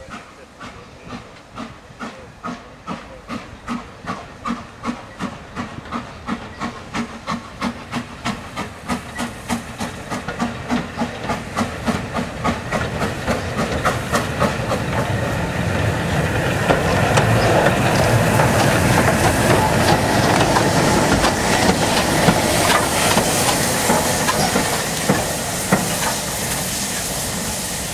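Steam locomotive working hard as it gets under way. Its exhaust beats start at about two a second and grow quicker and louder as it draws nearer. About halfway through they give way to a loud, steady hiss and rumble of steam and running gear as it comes close.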